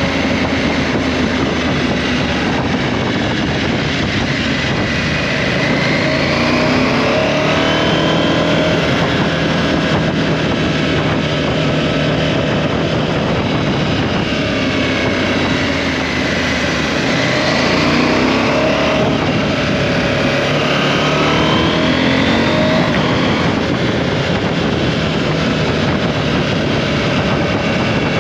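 KTM 790 Adventure's parallel-twin engine running under way, its pitch rising and falling several times as the bike accelerates and eases off, over a steady rush of wind noise.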